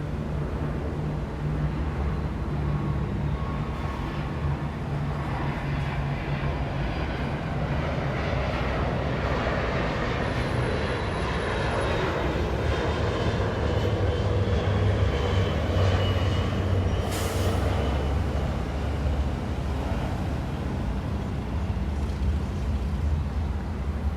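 Downtown street traffic, with engines humming steadily and a heavy vehicle passing. Its rumble swells through the middle, and there is a brief hiss about two-thirds of the way through.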